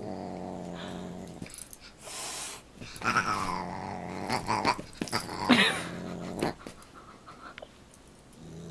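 A dog growling in several low, rumbling spells while play-fighting with a cat, with a couple of brief higher cries between them.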